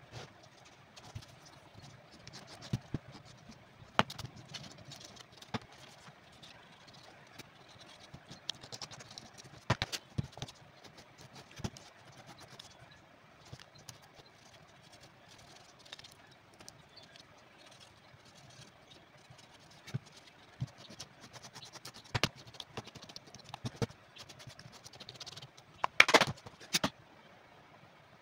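Rubber shoe soles and small objects being handled on a workbench: scattered light taps and knocks, with a louder clatter near the end.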